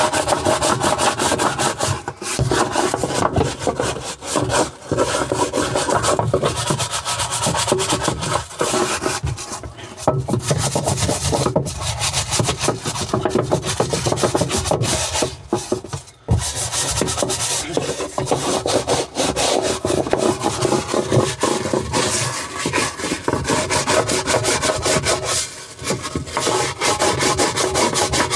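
Brush scrubbing parts of a washing machine with rapid back-and-forth strokes, pausing briefly a few times.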